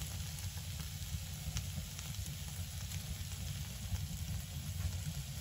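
Pork chop, mixed vegetables and hash browns sizzling steadily on a flat griddle over a small wood stove, under a steady low rumble.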